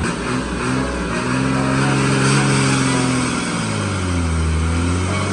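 Motor vehicle engine revving under load: its pitch climbs over the first couple of seconds, sinks to a low point about four seconds in, then rises again.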